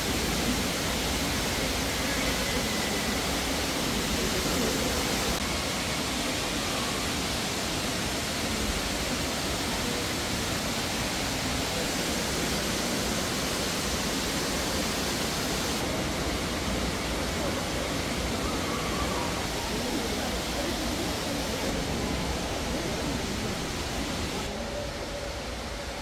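Steady rush of falling water from an indoor waterfall inside a glass greenhouse dome, its brightness shifting abruptly a few times.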